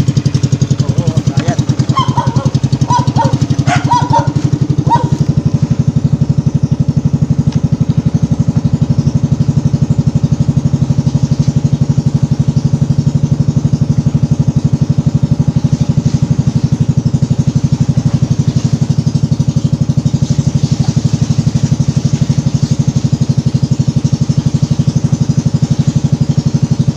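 Engine of a small motorized outrigger boat running steadily at cruising speed as the boat travels, with a few brief higher-pitched sounds over it in the first five seconds.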